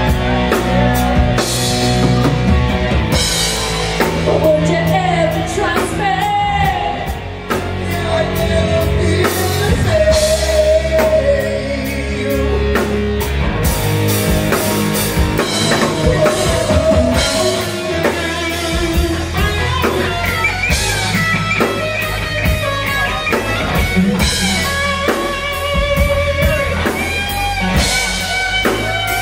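Live rock band playing a male-female duet: singing over electric guitar, bass and drum kit.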